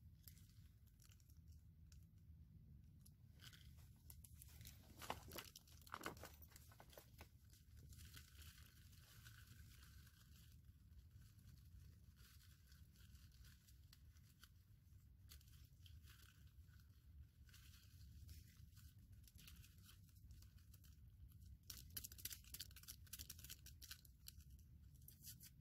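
Faint rustling, crinkling and tearing of something small being worked with the hands, with clusters of small clicks about five seconds in and again near the end, over a low steady rumble.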